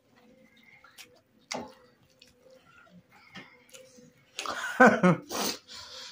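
Eating by hand: scattered small clicks and smacks of chewing, and fingers working food on a plate. About four and a half seconds in comes a loud burst of a person's voice lasting about a second, over a faint steady hum.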